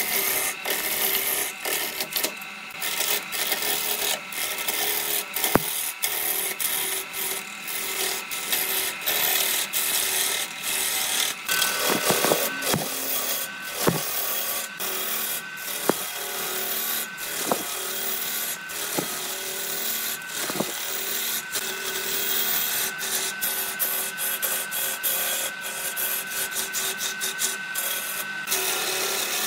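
A turning tool cutting a spinning wooden blank on a lathe: a continuous rough scraping and shaving noise broken by frequent small ticks. Through much of the second half a steady high whine runs along with it.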